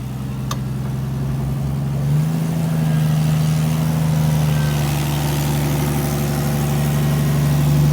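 Off-road vehicle's engine running steadily under throttle, its revs stepping up about two seconds in and holding there as the rig works over a trail obstacle. A single sharp click about half a second in.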